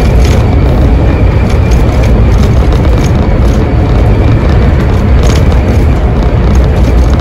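Iveco Crossway Line bus's Iveco Cursor diesel engine running steadily at cruising speed, with tyre and road noise, heard from inside the driver's cab as one steady loud drone and a few faint clicks from the cab fittings.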